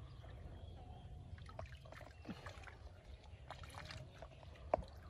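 Pond water sloshing softly around a person wading chest-deep, with scattered small drips and clicks and one sharp click near the end.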